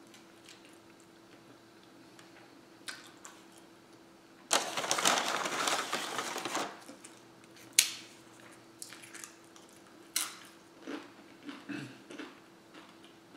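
Paper takeout bag rustling and crinkling for about two seconds as a hand reaches in for tortilla chips, followed by a single sharp click and then soft, scattered chewing noises, over a steady low room hum.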